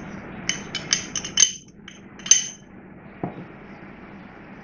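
A small glass bowl clinking as garlic-ginger paste is knocked and scraped out of it onto chicken in a metal pot: a run of sharp, ringing clinks, then a single dull knock.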